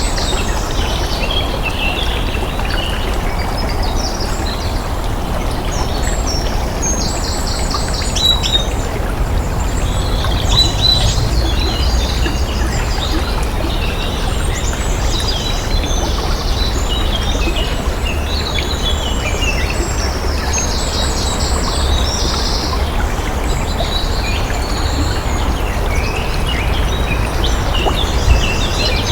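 Many songbirds chirping and calling over a steady rush of flowing water.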